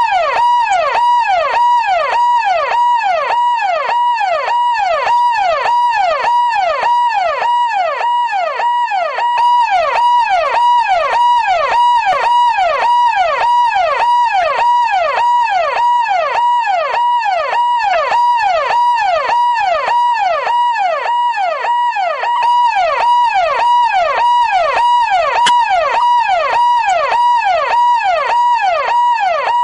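Siren ringtone: a siren sweeping rapidly down and back up, about two sweeps a second, over a steady high tone, repeating without a break.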